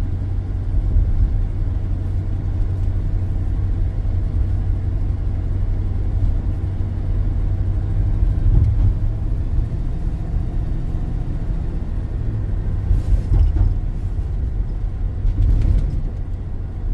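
Chevrolet van's engine running while driving, heard from inside the cabin as a steady low drone mixed with road rumble. The engine is being listened to for a lifter tick that is hard to make out, after a misfire traced to a spark plug wire that had come off.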